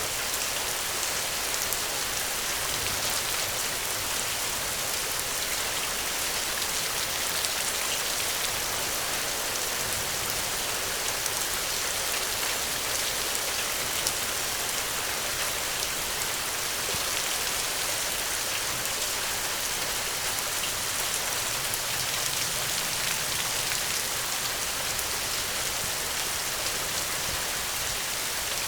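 Steady rain falling, an even hiss of rain with many fine drop ticks.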